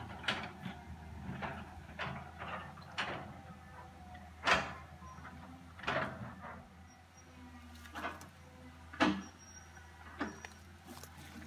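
Cat 315C hydraulic excavator running with a steady low engine hum while its bucket digs at the roots of a large tree, giving a series of sharp knocks and cracks one to two seconds apart.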